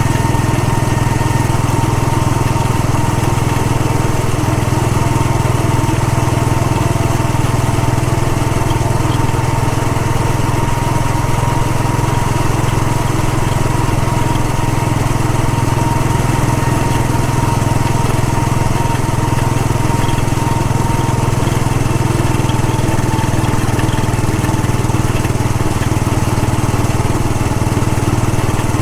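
Royal Enfield Bullet 500 EFI's single-cylinder engine running steadily as the motorcycle is ridden along, with no change in pace.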